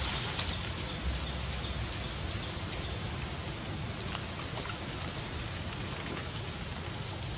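Dry leaf litter rustling and crackling under macaques moving and tussling on it, with a few sharp ticks over a steady high hiss.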